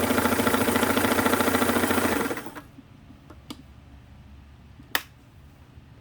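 Singer 327K domestic sewing machine running fast, a rapid, even stitching rhythm, as it sews a test seam after its thread tension was tightened; it stops about two seconds in. A few light ticks follow, and one sharp click near the end.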